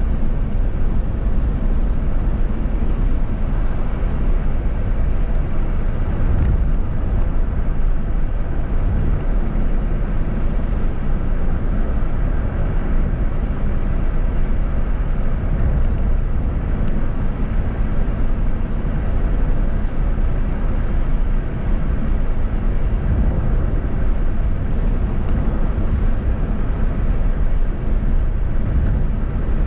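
Steady road and wind noise from a vehicle driving along a highway, a constant low rumble with no breaks.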